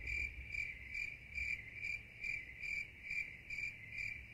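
Crickets chirping faintly in an even rhythm of about two and a half chirps a second: the stock 'crickets' sound effect for an awkward, puzzled silence, with the music and talk cut out around it.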